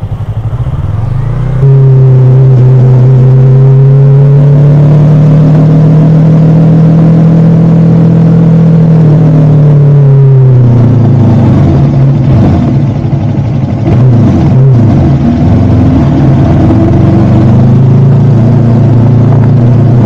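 Motorcycle engine under way, picked up from the rider's own bike. It revs up sharply about two seconds in and holds a steady pitch, then drops about halfway through and runs on unevenly.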